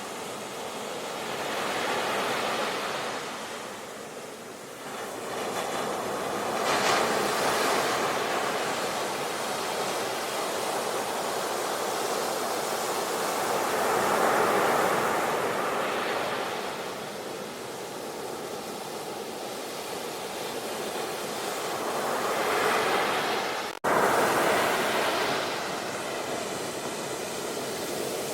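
Ocean waves breaking and washing up a shore, swelling and falling back every several seconds. Near the end the sound cuts out for an instant and comes straight back on a fresh wave.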